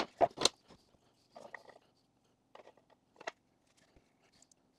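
Wooden board and 3D-printed plastic table legs being handled on a wooden workbench: three sharp knocks in the first half second, then a few softer taps, the last about three seconds in.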